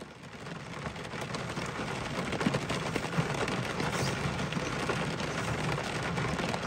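Heavy rain coming down hard: a dense, steady patter of countless drops hitting, with a low rumble beneath. It fades in over the first second.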